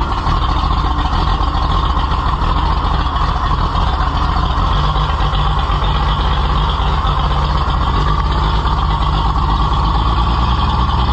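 Diesel tractor engine running steadily just after an ether-assisted cold start, still cold.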